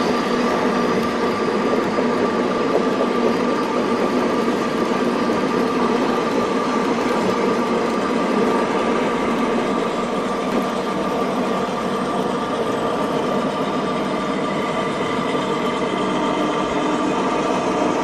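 Model diesel locomotives and freight cars running on a layout: a steady diesel engine sound with a constant hum, over the rolling of wheels on the track.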